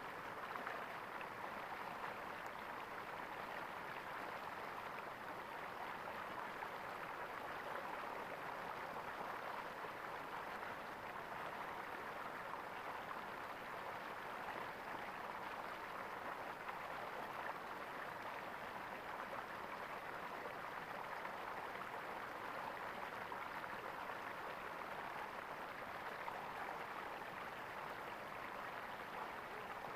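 Stream water flowing and gurgling steadily.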